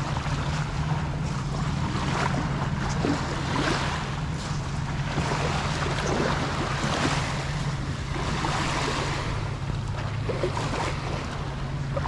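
Steady rushing noise over a low, even drone, swelling and easing every second or two.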